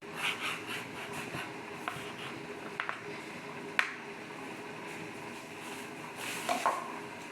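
Steady room hum with a few light clicks and knocks, the sharpest about four seconds in, and a brief rustle near the end.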